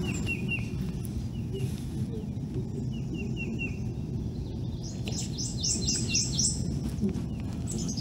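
Small birds chirping: a few soft chirps in the first half, then a quick run of about six higher, louder chirps past the middle, over steady low background noise.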